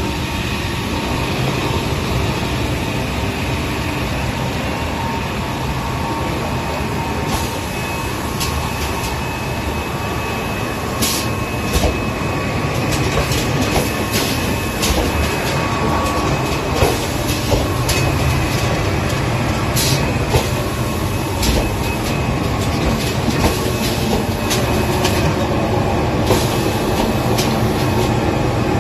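Hand towel cutting and packing machinery running: a steady mechanical din with frequent clacks and knocks throughout, and a faint steady whine.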